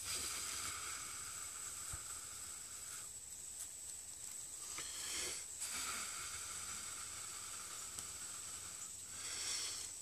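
Breath blown in short hissing puffs into a bundle of dry pine needles holding glowing char cloth, coaxing the ember to flame: one puff at the start, one about five seconds in and one near the end.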